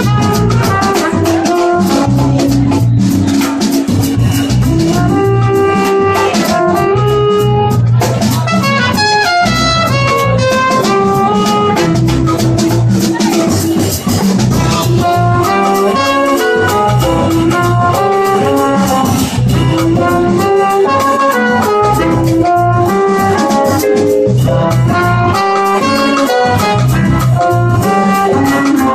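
Live jazz band: trumpet and trombone playing melody lines over a drum kit with busy cymbals and a rhythm section.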